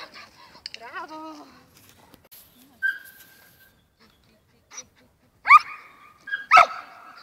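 A dog barking twice, loud and sharp, about a second apart near the end, with quieter scattered sounds before.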